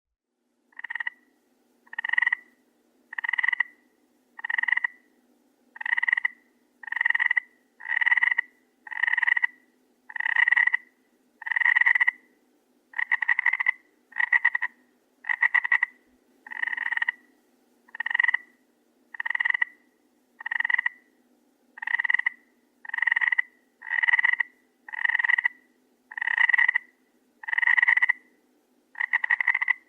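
A frog croaking over and over, each call a short rapid rattling croak of about half a second, repeated roughly once a second at a steady pace. A faint low background hum runs underneath.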